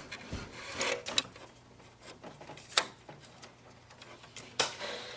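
Light plastic clicks and handling noise as flat ribbon cables are pushed into the printer's print head connectors. The sharpest click comes just before three seconds in, and another follows near the end.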